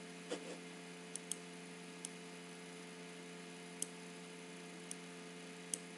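Six faint, sharp computer-mouse clicks at irregular intervals, two close together a little after the first second, over a steady electrical hum.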